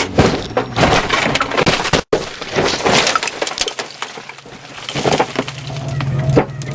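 A rapid, dense clatter of cracking and breaking impacts, like things being smashed, broken off by an abrupt cut about two seconds in and then resuming; a low steady hum grows near the end.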